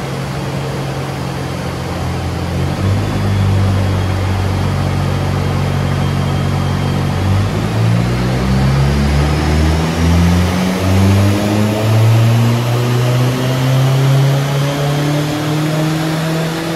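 VW Lupo's transplanted 1.8T 20-valve turbo four-cylinder (AUM) running on a rolling-road dyno: engine speed holds steady, then from about seven seconds in climbs slowly and steadily under a gradual pull, with a high whine rising along with it.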